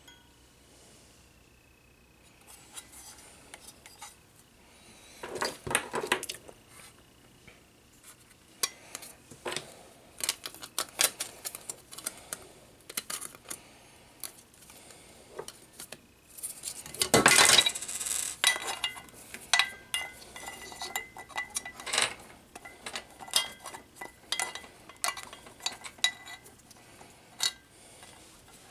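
Security-camera mounting parts being handled: irregular clicks and knocks of the plastic bracket, metal junction-box base and cable connectors against each other and the table, with a louder stretch of scraping and rustling a little past the middle.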